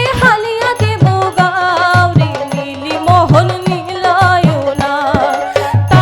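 Bhawaiya folk song: a voice sings a wavering, ornamented melody over a steady drum beat of about two strokes a second.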